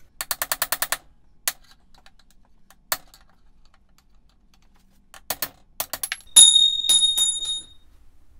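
A hammer taps a half-inch steel rod, used as a punch, to drive an old steering-head bearing race out of a dirt bike frame. First comes a quick flurry of about ten light taps, then a few single taps. Near the end come louder clangs that ring on with a high metallic tone.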